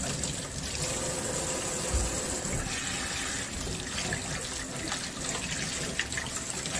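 Kitchen faucet running into a stainless-steel sink as eggplants are rinsed by hand under the stream, the water splashing off them into a pot below. A soft knock comes about two seconds in.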